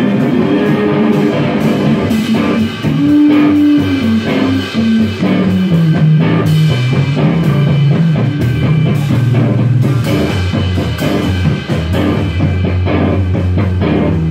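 Live rock trio playing: electric guitar, drum kit and bass guitar. About three seconds in a note bends up and back down, then a low line steps down in pitch over several seconds while the drums keep striking.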